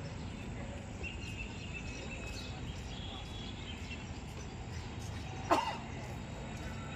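Steady outdoor background noise with a single short, sharp animal call about five and a half seconds in.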